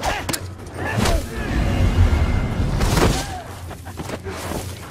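Movie fight-scene sound mix: several sharp punch and body-impact hits and short grunts from the fighters, over a low, rumbling music score.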